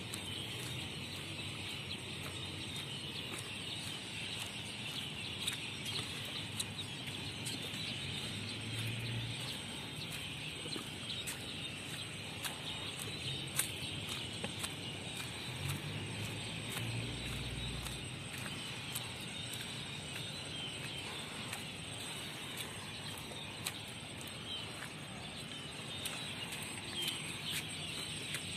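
Steady, dense chirping of many birds together, high in pitch, with scattered light clicks.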